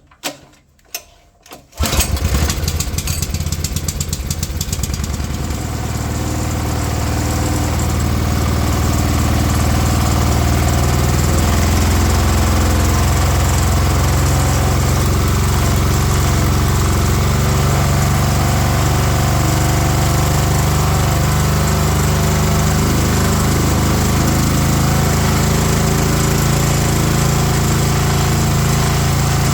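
Water blaster's small petrol engine starting on choke about two seconds in, after a few short knocks, then running steadily with no load, its water pump removed, while its newly fitted carburettor is still being adjusted.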